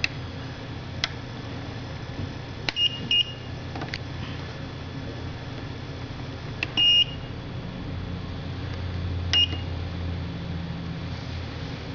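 A BL T&K 60K control unit beeping as its buttons are pressed during a foot-pedal reset. There are button clicks, two short beeps about three seconds in, a longer beep near seven seconds and another short beep near nine and a half seconds. A low hum grows louder in the last few seconds.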